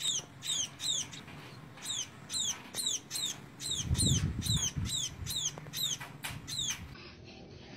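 Fledgling birds chirping over and over as they are hand-fed, the begging calls of young birds asking for food. Short, high, falling chirps come about two to three a second and stop shortly before the end.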